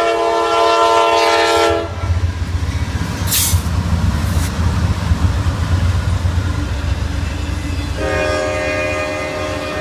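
Norfolk Southern GE Dash 9 diesel locomotives passing close by: the horn sounds a loud multi-note chord until about two seconds in, then the locomotives run past with a deep engine rumble and the noise of wheels on rail, and the horn sounds again, fainter, about eight seconds in.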